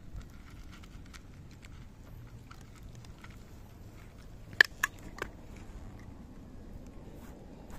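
Two cats crunching dry kibble from a dish, a run of faint crisp crunches. A little over halfway through come three sharp clicks in quick succession, the loudest sounds.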